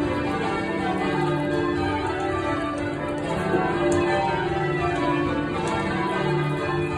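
A ring of twelve church bells, tenor 23-3-19 in D, change ringing: a steady, unbroken stream of overlapping bell strokes.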